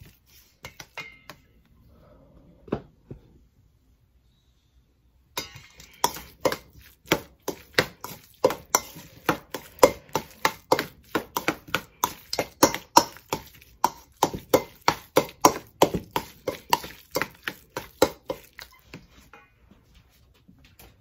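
Baked potatoes and butter being mashed by hand in a stainless steel bowl, the utensil knocking against the bowl in a steady rhythm of about two or three strikes a second. A few scattered knocks come first, then a near-silent pause; the rhythm starts about five seconds in and stops shortly before the end.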